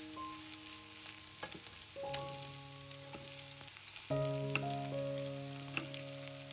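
Spoonfuls of kefir fritter batter sizzling in hot vegetable oil in a frying pan, with sharp clicks of metal spoons against the pan. Soft background music plays over it, louder from about four seconds in.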